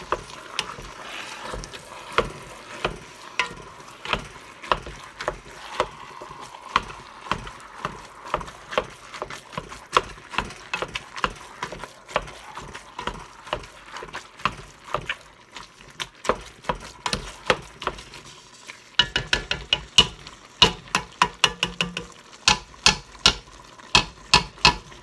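Hamburger chopper, which the cook thinks is a Pampered Chef, jabbing through raw ground beef and sausage and clicking against the bottom of an enamel-lined cast-iron pot, about one or two knocks a second. About three quarters of the way through the strokes come faster and louder.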